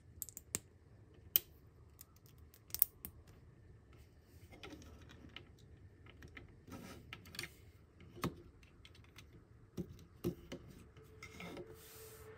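LEGO bricks being handled and pressed together: scattered light plastic clicks and taps at irregular intervals.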